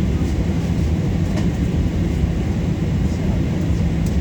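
Steady low rumble and hum inside the cabin of a Boeing 737-800, its CFM56-7B engines at idle after landing. There are a couple of faint clicks.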